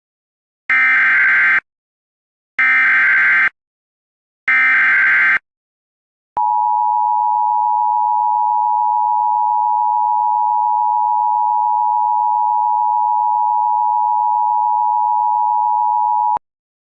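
Emergency Alert System SAME header: three short bursts of screechy digital data tones, about two seconds apart. These are followed by the EAS attention signal, a steady two-note electronic tone held for about ten seconds that cuts off abruptly. Together they signal the start of an emergency alert broadcast.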